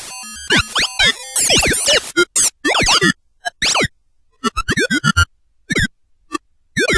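Synthesized weird sound effects from the Serum software synthesizer: a string of short electronic chirps and bleeps that sweep quickly up and down in pitch, packed together for the first two seconds, then coming as scattered separate blips with silent gaps.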